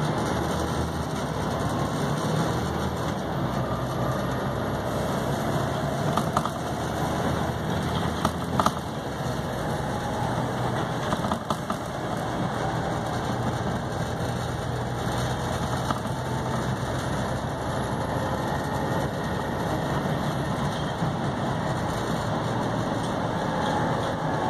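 Volvo B7TL bus's 7.3-litre diesel engine running steadily, with a few brief rattles or knocks around the middle.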